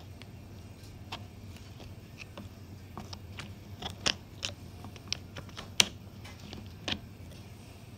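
Long metal tool clicking and scraping against a castellated nut, working it loose to free a pool table cushion: scattered sharp metallic clicks, the loudest about six seconds in.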